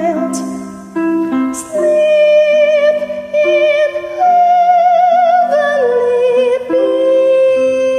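A woman singing a slow Christmas carol with vibrato over sustained electronic keyboard chords, holding one long note in the last second or so.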